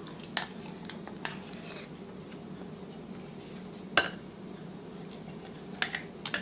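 A few sharp clinks of metal against a glass mixing bowl as a large can of pumpkin puree is tipped and scraped out into it. The loudest knock comes about four seconds in and a small cluster near the end, over a steady low hum.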